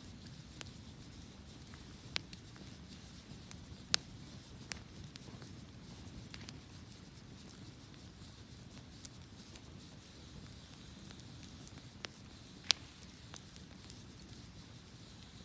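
Wood fire burning, a low steady rustle broken by a handful of sharp, isolated crackles and pops.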